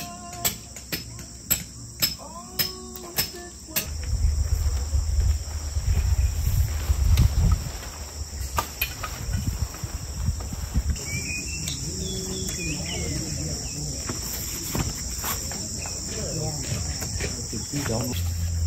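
Insects chirping in a steady high-pitched drone, growing louder about halfway through. Sharp clicks come about twice a second for the first few seconds, and a low rumble is loudest from about four to eight seconds in.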